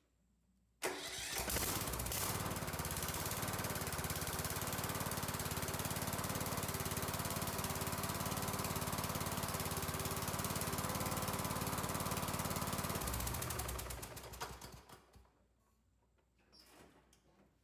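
Kohler Courage 20 engine of a Toro LX460 lawn tractor starting abruptly about a second in, running steadily for about twelve seconds, then shut off and winding down. It is run briefly to circulate fresh oil through the system after an oil change.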